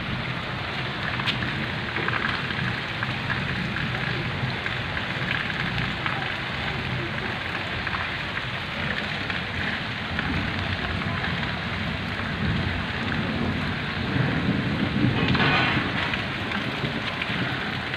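Heavy rain falling steadily, an even hiss throughout; a low rumble swells about three-quarters of the way through.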